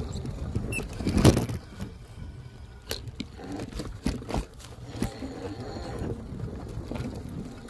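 Off-road electric bike riding over rough ground: a steady low rumble with irregular knocks and rattles from bumps, the loudest about a second in.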